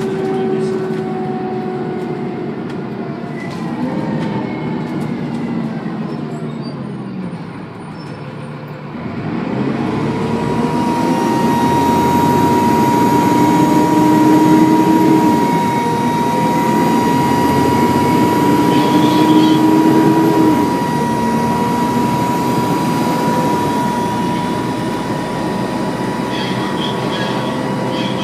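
Dennis Trident II double-decker bus heard on board: the engine note falls away as the bus slows, then climbs as it pulls off, rising twice and dropping at each upshift of its Voith automatic gearbox. A loud, steady high turbo whine rides over the engine from the pull-away on.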